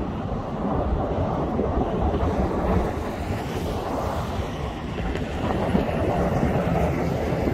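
Jet airliner engines running as a steady, deep rumble, with wind buffeting the microphone.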